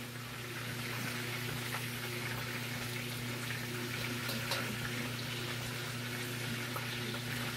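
Chicken thighs sizzling in their rendered fat in a stainless steel pot on the stove: a steady sizzle with a few faint pops, over a low steady hum.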